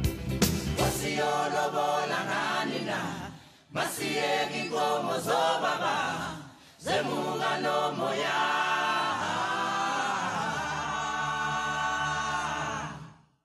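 Background music: a choir singing a cappella, with two short breaks about three and a half and six and a half seconds in, stopping just before the end.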